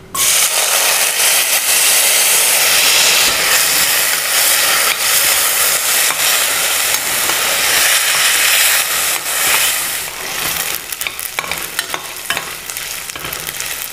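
Turmeric-coated coconut slices dropped into hot coconut oil in a stainless steel pressure cooker, sizzling hard at once and frying while stirred with a steel spoon. The sizzle eases a little near the end, with the spoon clicking and scraping against the pan.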